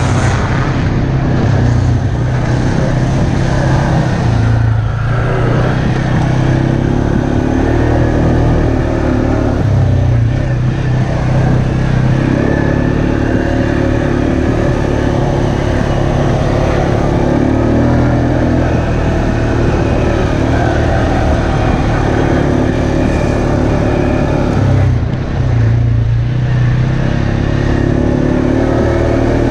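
ATV engine running steadily under throttle while riding a dirt trail. It eases off and picks back up about five seconds in and again near the end.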